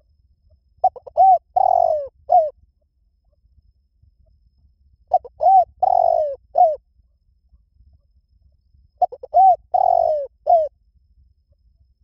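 Spotted dove cooing: three phrases about four seconds apart, each a few quick short notes, then a longer note and a final falling note. This is the 'liu tan' type of coo, played as a lure call to train cage doves to answer.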